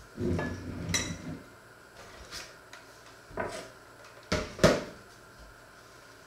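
Knocks and clunks of a plastic digital clock being picked up and set back down on a wooden kitchen counter, with a short ringing clink about a second in and the loudest knock about four and a half seconds in.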